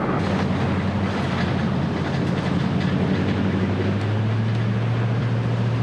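Steady engine drone and road noise from inside a moving vehicle; the engine note shifts slightly about four seconds in.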